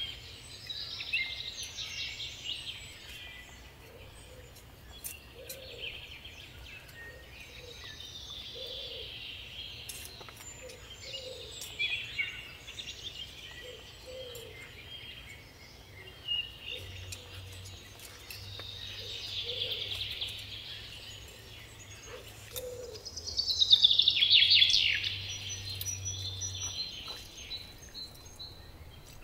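Garden birds singing and chirping continuously, with a louder rapid trill of falling notes about three-quarters of the way through.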